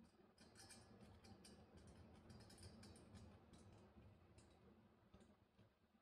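Faint, irregular clicks and ticks of a micron gauge fitting being handled and threaded onto a valve port of a refrigerant recovery cylinder.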